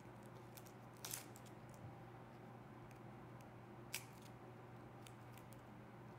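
Faint rustling and small clicks of a foam sticker being peeled off its paper backing, with a brief rustle about a second in and a sharp click about four seconds in, over a steady low hum.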